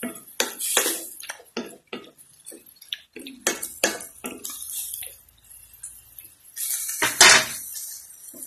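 Wooden spatula scraping and knocking against a stainless steel pan while stirring sautéed pork and vegetables, in irregular strokes, with one longer, louder scrape about seven seconds in.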